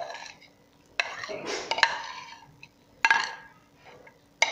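Crockery scraping and clinking as cooked chicken mince is scraped off a plate into a bowl of egg batter: four short scraping bursts about a second apart.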